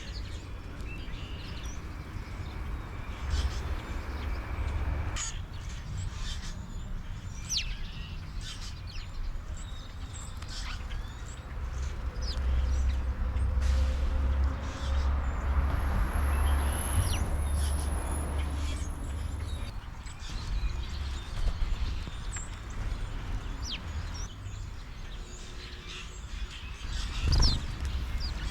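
Wild birds calling: many short chirps and harsh, crow-like calls scattered throughout. Beneath them runs a low outdoor rumble that swells in the middle.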